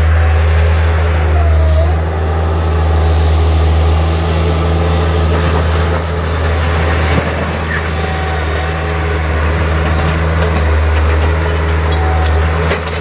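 Bobcat skid-steer loader's diesel engine running steadily as the machine drives and works its bucket against a brick wall, with a single knock about seven seconds in.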